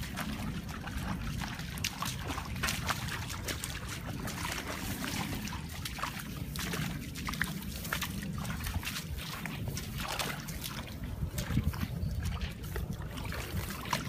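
Shallow muddy water sloshing and splashing irregularly as bare feet wade through it and hands scoop in a puddle, over a steady low rumble.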